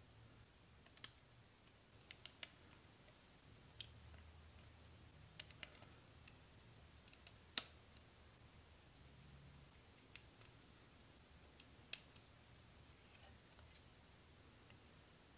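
Small plastic Jie Star building bricks clicking as they are handled and pressed together: a scattered, irregular series of sharp little clicks over quiet room tone, with two louder snaps, one about halfway through and one a few seconds later.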